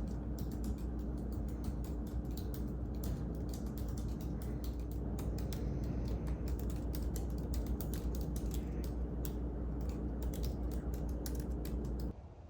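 Typing on a computer keyboard: rapid, irregular key clicks over a steady low hum, stopping abruptly near the end.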